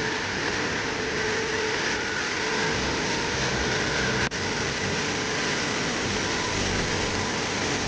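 Steady car noise, a vehicle running with an even mix of engine and road sound, broken by a brief dropout about four seconds in.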